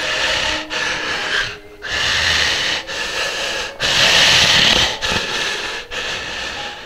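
A man breathing heavily and loudly through an open mouth: noisy breaths, one after another, with a short break about once a second.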